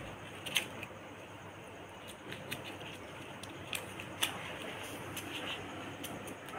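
Paper banknotes crinkling and rustling as a small child's hands shuffle them, a scatter of short crackles over a steady low hiss.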